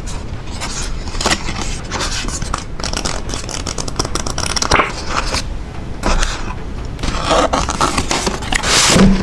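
Hands handling the packaging of a playing card box set: scraping, rustling and crackling, with many small taps and clicks, and a louder rustle near the end.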